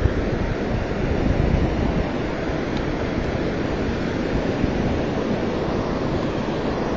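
Wind buffeting the microphone over the steady rush of surf breaking on a sandy beach, swelling a little about a second in.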